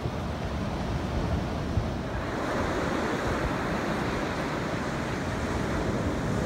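Steady rush of ocean surf with some wind, growing a little louder about two seconds in.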